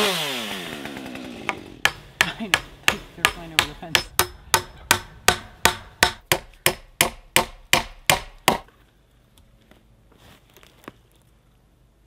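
A chainsaw's engine winding down in pitch and fading, followed by a steady run of about twenty sharp hammer blows on wood, roughly three a second, which stop suddenly.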